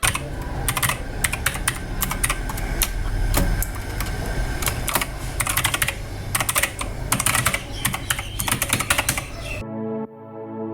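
Fast typing on a Cosmic Byte CB-GK-03 aluminium mechanical keyboard: a dense, uneven run of key clicks that stops abruptly near the end, where electronic music comes in.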